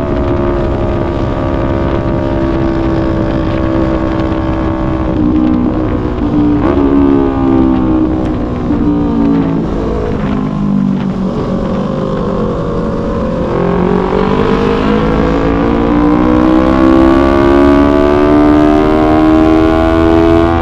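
Yamaha YZF-R3 parallel-twin engine on a ride: holding a steady pitch, stepping down about five seconds in, sinking slowly as the bike slows, then climbing steadily as it accelerates hard again.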